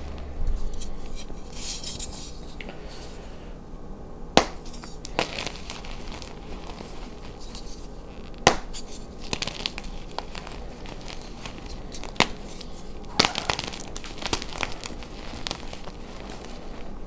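Hands crushing and crumbling blocks of blue-dyed reformed gym chalk: a steady crisp crumbling and gritty rustle of chunks and powder, broken by about four sharp snaps as firmer pieces crack apart.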